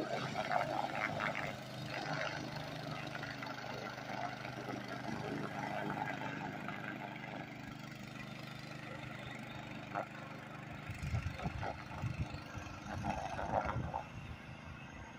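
Predator 212 single-cylinder four-stroke engine on a homemade long-tail mud motor, running steadily at a distance as it drives the canoe across the water. About eleven seconds in, irregular low rumbling knocks join it.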